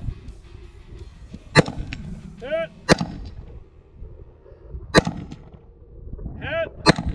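Four rifle shots fired at an unhurried pace, one to two seconds apart, with short ringing pings between some of the shots.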